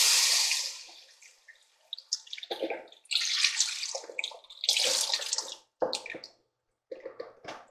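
Chicken broth pouring from a carton into a Dutch oven, the splashing fading out within the first second. It is followed by a series of short splashes and drips as the last of the broth is shaken and squeezed out of the carton.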